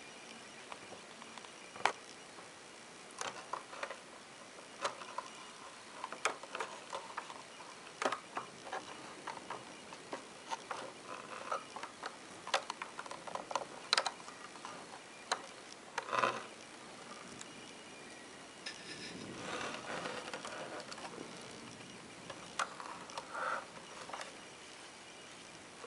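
Irregular wooden clicks and knocks from a handmade wooden model threshing machine as its metal hand crank and moving parts are worked. A stretch of soft rustling comes about twenty seconds in.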